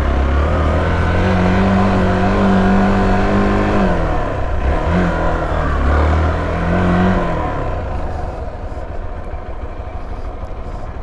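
Hero XPulse motorcycle's single-cylinder engine running at steady revs under throttle on off-road ground. The revs drop about four seconds in and come back in two short bursts. After about seven seconds the throttle is closed and the engine sound falls away to a quieter rumble.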